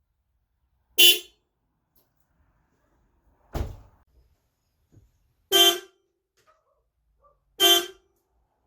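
Car horn sounded in four short honks about two seconds apart; the one near the middle is duller and lower than the other three.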